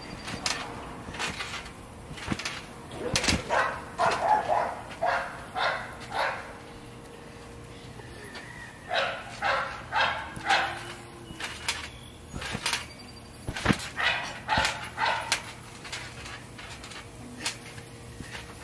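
A dog barking in several runs of short barks, with a few sharp knocks in between.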